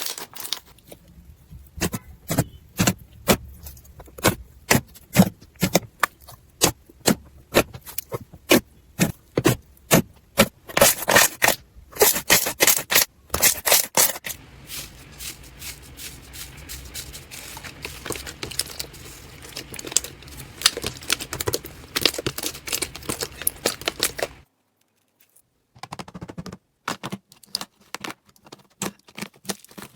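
Slime being squeezed and poked by hand, making rapid crisp clicks, pops and crackles. The sound turns to a softer, denser crackle about halfway through. It cuts to a second of silence near the end, then sparser clicks follow.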